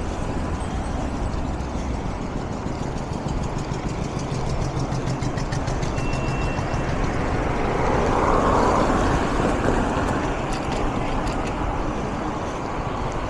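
Street traffic: a steady low rumble, with a motor vehicle passing that swells loudest about eight to nine seconds in and then fades.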